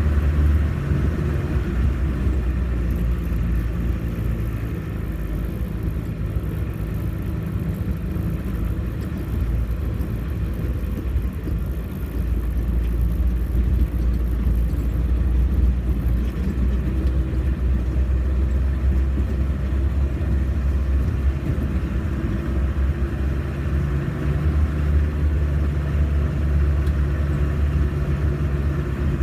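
Off-road 4x4 vehicle's engine running as it drives, a steady low rumble that rises and settles a little in pitch now and then.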